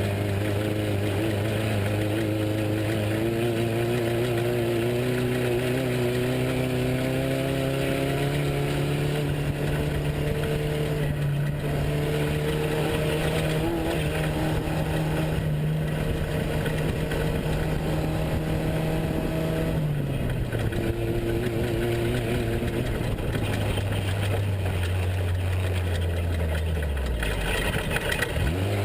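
Off-road race truck engine running hard under steady load. Its pitch climbs over the first several seconds and holds, then drops back about two-thirds of the way through and falls again near the end, over a constant rushing noise.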